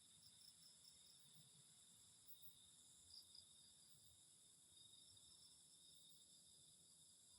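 Faint steady chorus of crickets, a continuous high-pitched trilling with a couple of slightly louder chirps about three seconds in.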